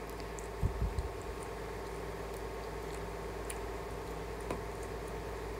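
Soft handling sounds of fingers rubbing marinade onto raw fish steaks on a plate, with a few low thumps about half a second to a second in and faint clicks, over a steady low hum.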